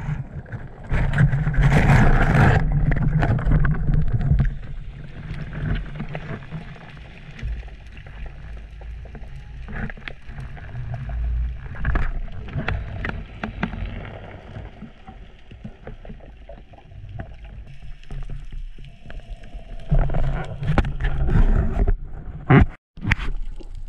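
Muffled underwater water noise from an action camera in its housing: a low rumble and sloshing with scattered clicks and knocks, louder in the first few seconds and again near the end.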